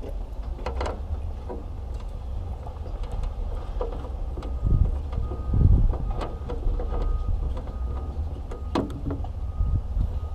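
Steady wind rumble on the microphone, with scattered sharp clicks and knocks of hands working at a plastic hood bug deflector to pull it off its mounts, and a few heavier low thumps about halfway through.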